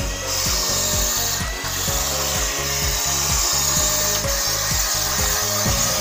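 Wall-climbing remote control car's suction fan whirring steadily, holding the car to the glass while it drives, with background music with a steady beat.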